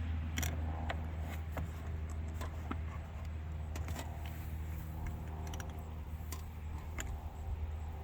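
Scattered small metallic clicks and taps of screws, a spacer and door parts being handled inside a truck door, over a steady low hum.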